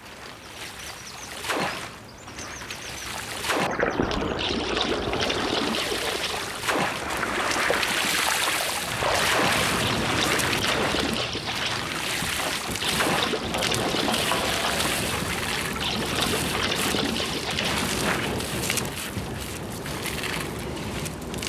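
River water splashing and trickling as bulrushes are cut and lifted from the water, mixed with the rustle of the wet rush stems. It grows fuller about four seconds in.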